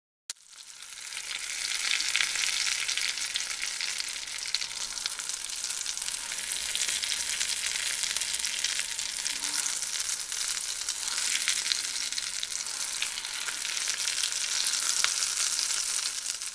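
A cheese-filled tortilla wrap frying in oil in a nonstick frying pan, sizzling and crackling steadily. The sizzle cuts in just after the start and swells over the first couple of seconds.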